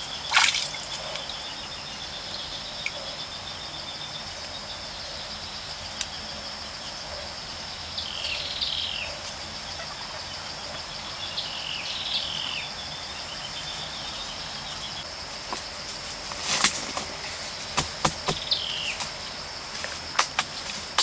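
Steady, high-pitched insect drone in the forest, with a second, higher buzz that cuts off about two-thirds of the way through. A few short bird chirps come and go. Scattered thuds and knocks from soil being handled and packed: one loud one just after the start, and a cluster in the last few seconds.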